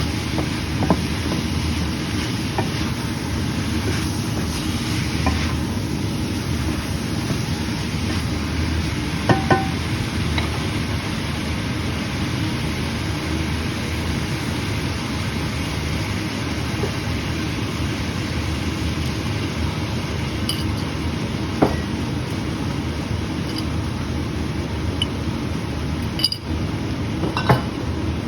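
Beef and vegetables sizzling steadily as they stir-fry in a pan, with a few sharp clinks of the cooking utensil against the pan.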